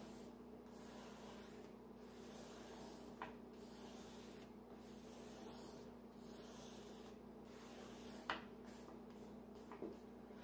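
Blue block crayon rubbed broadly across paper while shading a sky: a faint, scratchy hiss that swells and fades in long back-and-forth strokes, over a steady low hum. A couple of small taps come about three seconds in and again near the end.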